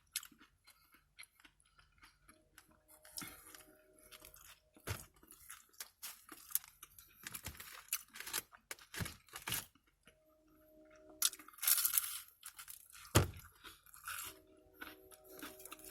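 Close-up eating sounds: chewing and crunching food, with wet mouth clicks, irregular and bitty throughout. A louder rustle about 11 seconds in and a single sharp knock about 13 seconds in.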